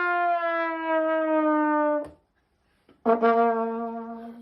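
Brass-horn sound effect: one long note sliding slowly down in pitch, cut off about two seconds in, then after a short pause a lower held note.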